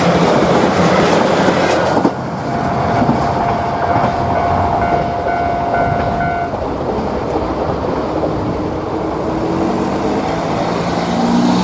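Diesel train passing a level crossing with wheels clattering on the rails. The crossing's warning bell rings under the train noise for a few seconds and then stops, and near the end a diesel engine revs up with rising pitch.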